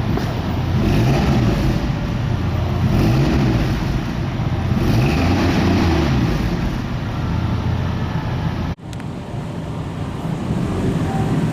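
A 1963 Ford Galaxie 500's 223 cubic-inch inline six running under way, its pitch rising and dropping back several times as it pulls through the gears. About nine seconds in, the sound cuts off abruptly to a quieter, steadier run.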